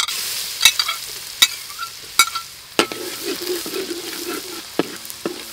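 Food tipped into hot oil in a large steel wok, sizzling at once. It is then stirred with a metal ladle that scrapes and knocks against the wok several times.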